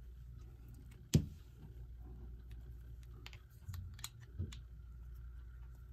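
Light clicks and knocks of a Telechron clock's metal coil assembly and rotor being handled and fitted together, with one sharper knock about a second in.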